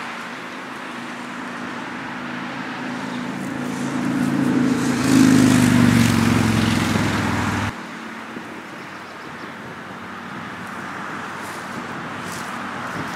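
A motor vehicle engine running, growing louder over about five seconds and then cutting off abruptly; a steady background noise follows.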